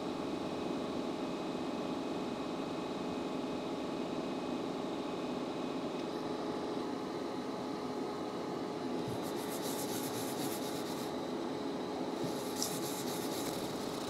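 Steady fan whir from bench equipment. About nine seconds in come two short spells of brisk scrubbing as a brush soaked in isopropyl alcohol scrubs flux off a circuit board around a freshly soldered HDMI port.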